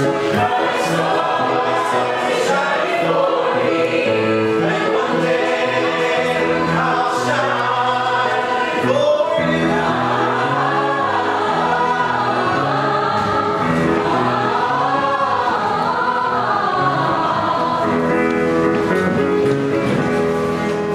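Music: a group of voices singing a song together over instrumental backing.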